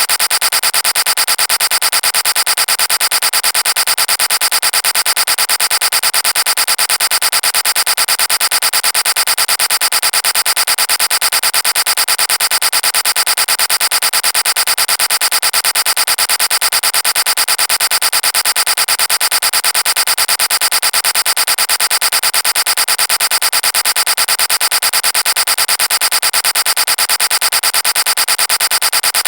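The 'vine boom' meme sound effect repeated over and over so fast that the booms run together into a steady, distorted pulsing buzz.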